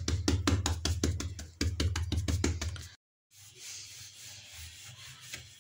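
Fingertips rapidly patting and pressing pizza dough on a wooden board: a quick run of soft knocks with a dull thud from the board. After a sudden break about three seconds in, a wooden rolling pin rolling over the dough gives a quieter, steady rubbing.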